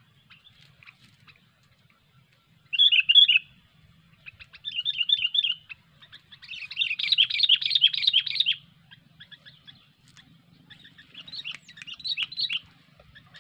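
Sooty-headed bulbul (kutilang) giving its rapid 'cengkram' chattering call in four bursts of quick high notes. The third burst is the longest and loudest.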